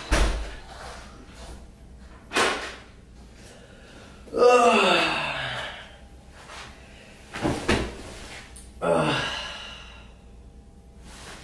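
A man's drawn-out sigh that falls steadily in pitch, then two soft thumps as he drops onto a bed, then a second, shorter falling sigh. Two sharp thuds come before them.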